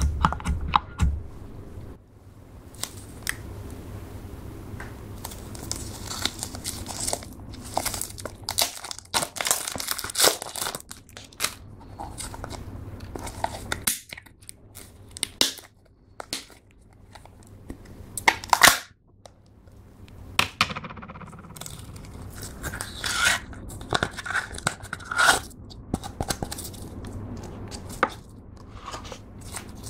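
Clear slime being pressed, squeezed and stretched by hand, giving irregular sticky crackles and pops, with one sharp louder pop a little past halfway.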